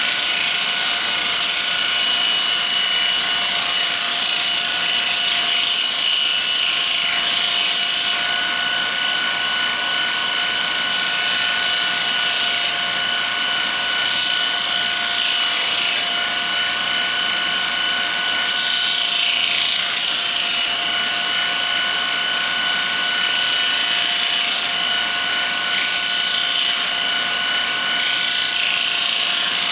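Bench grinder running with the steel shaft of a pry-bar carbide turning tool held against the wheel, grinding a rounded rub bevel into its underside. The sound is a steady whine with a continuous hiss of metal grinding.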